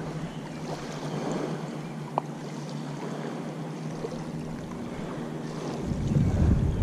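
A distant motorboat engine drones steadily over river water lapping at the bank. There is a single sharp click about two seconds in, and wind starts buffeting the microphone at about six seconds.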